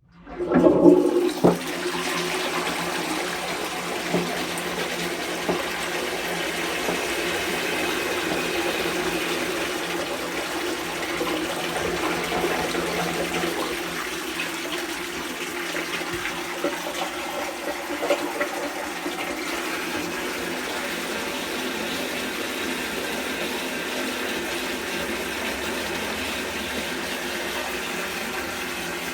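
Vintage toilet flushed from a Doulton wooden high-level cistern into a 1920 J Tylor & Sons 'The Column' pan. A sudden loud rush of water starts it, then water keeps running steadily as the cistern refills.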